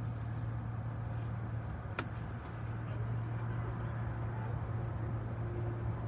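Piston aircraft engine running steadily on the airfield, a low even drone, with a single sharp click about two seconds in.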